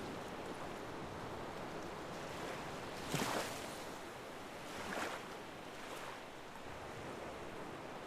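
Ocean waves washing in steadily, with a few brief louder splashes, the strongest about three seconds in and another about five seconds in.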